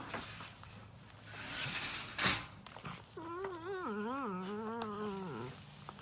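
A dog's noise-making giggle ball toy being nosed and pushed along, letting out a wavering, warbling tone for about two seconds from three seconds in. A sharp knock comes a little after two seconds.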